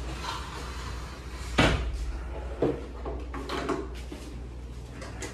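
A sharp bang about one and a half seconds in, a smaller knock a second later, then lighter bumps and rattles, over a steady low hum.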